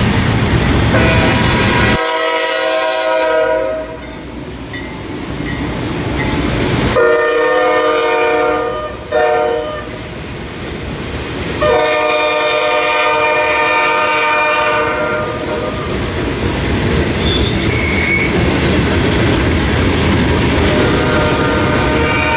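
Diesel locomotive's air horn sounding the grade-crossing signal, long, long, short, long, over the rumble and clatter of the train on the rails. After the last long blast the train runs on with a steady rumble.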